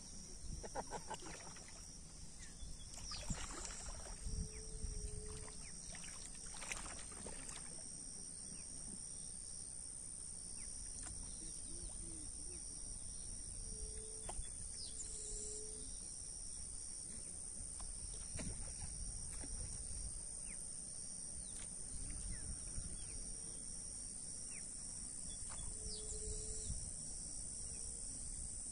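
Steady, high-pitched chorus of insects trilling without pause, with a few short, lower calls from an animal now and then. A couple of brief noises come about three and seven seconds in.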